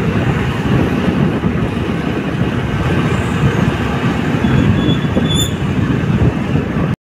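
Loud, steady rushing of wind and road noise on a microphone carried on a moving motorbike. It cuts off suddenly at the end.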